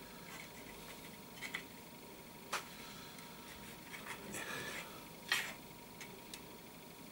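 Light handling noise of a small plastic quartz clock movement as clock hands are fitted onto its shaft: a few irregular small clicks and a brief scrape. The loudest click comes a little after five seconds in.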